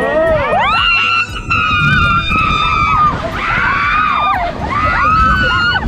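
Riders screaming on a splash amusement ride: several long, high screams that rise, hold and fall, overlapping one after another, over a low rumble.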